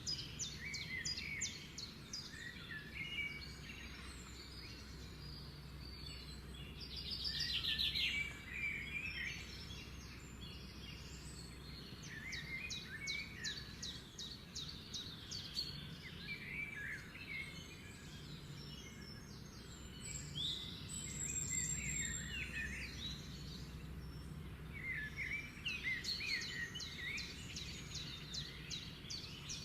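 Several birds chirping and singing, with repeated fast trills and shorter warbling phrases, over a steady low background hum.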